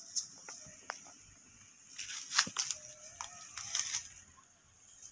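Leaves and dry twigs rustling and crackling as a monkey climbs through a leafy bush. A couple of sharp snaps come in the first second, then a burst of dense crackling in the middle, loudest about two and a half seconds in.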